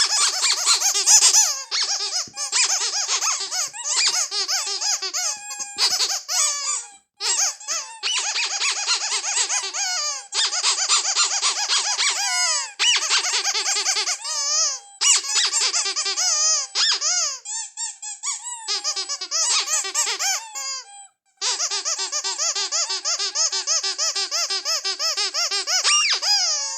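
Ledraplastic rubber squeaky toy squeezed over and over: rapid high squeaks in long runs, broken by brief pauses.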